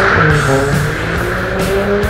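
Turbocharged Ford AU Falcon ute drifting: the engine revs and its tyres screech as they spin and smoke. A music track with a steady beat plays over it.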